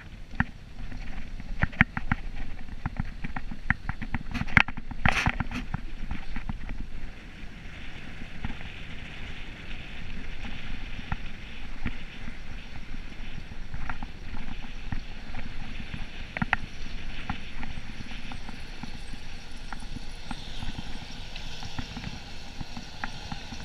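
A vehicle driving slowly over packed snow: a steady low rumble of engine and tyres with crunching and rattling clicks, thickest during the first several seconds.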